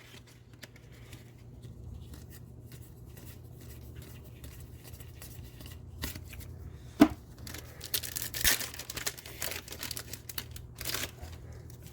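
A trading-card booster pack's foil wrapper being torn open and crinkled, with a sharp click about seven seconds in and crackling through the next three seconds. A low steady hum sits underneath.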